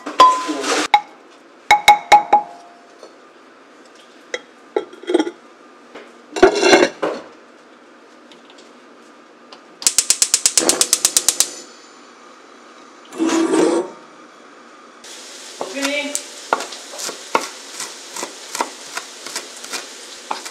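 A spoon clinks and scrapes against a clay rice pot during stirring, a few strikes ringing briefly. About ten seconds in, a gas hob igniter ticks rapidly for about a second and a half. From about fifteen seconds, a knife taps steadily on a wooden cutting board as green onions are chopped, over a steady hiss.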